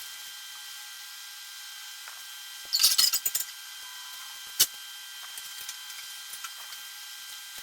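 Hard tent parts being handled: a brief burst of clattering clicks about three seconds in, then a single sharp knock, with a few light ticks after, over a steady hiss.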